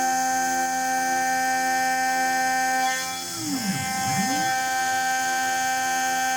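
Home-made CNC milling machine running, with a steady motor whine made of several held tones. About halfway through, a second whine dips in pitch and climbs back twice, as the motor drives slow down and speed up again.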